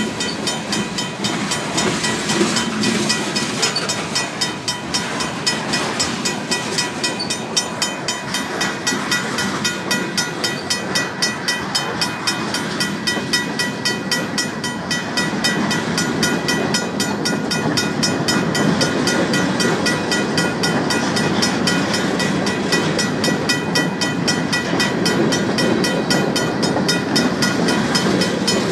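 A RACO mechanical crossing bell striking in a rapid, even rhythm over the rumble and clatter of a Union Pacific freight train's cars rolling past on the rails.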